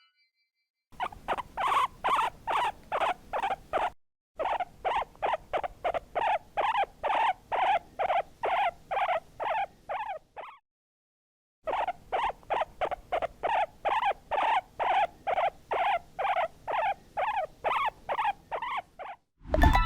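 An animal's rapid, evenly repeated squeaks, about three a second, in three runs separated by short pauses.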